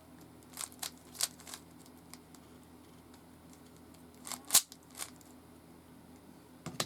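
Scattered sharp plastic clicks of an original Rubik's Cube being handled and its layers turned, about half a dozen in all, with the loudest about four and a half seconds in.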